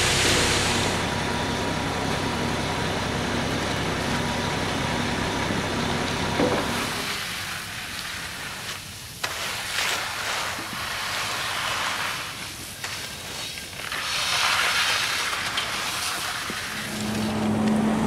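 Concrete mixer truck running steadily with a low hum. About seven seconds in it gives way to intermittent scraping of concrete rakes dragged through wet concrete.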